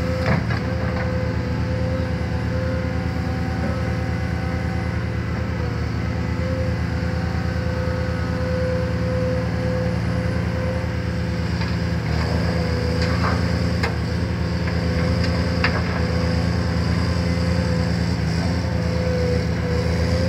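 Caterpillar 340D2 L hydraulic excavator's diesel engine running steadily under load with a constant high whine while it loads coal into a dump truck. A few sharp knocks stand out, one at the very start and two more past the middle.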